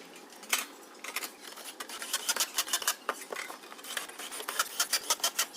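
Quick light clicks and scraping of parts being handled and fastened as a welding machine's casing is assembled. The clicks come more thickly from about two seconds in.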